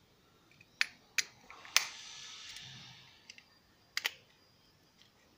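Small pointed screwdriver prying at the snap-together plastic case of a refrigerator compressor start relay (half thermal PTC, half electronic). It makes a few sharp plastic clicks, and for about a second and a half it scrapes along the seam.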